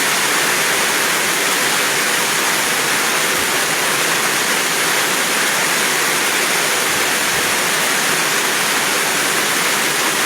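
Heavy rain falling, a loud, steady, unbroken hiss.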